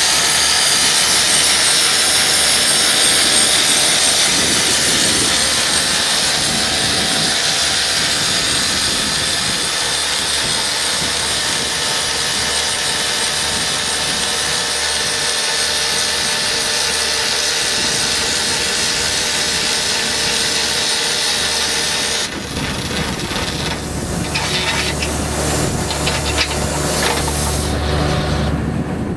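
Excavator-mounted PRD-60 rock drill boring into a stone block, a loud steady noise with air blowing the dust from the hole. It stops suddenly about 22 seconds in, leaving the excavator's engine running.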